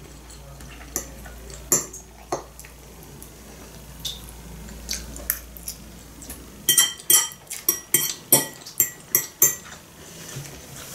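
Metal cutlery clinking against a ceramic bowl and plate while eating: a few scattered clinks, then a quick run of sharp, briefly ringing clinks from about seven to nine and a half seconds in.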